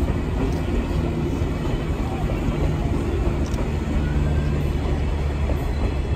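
JR 185 series electric train rolling slowly past, a steady low hum with continuous wheel-on-rail running noise.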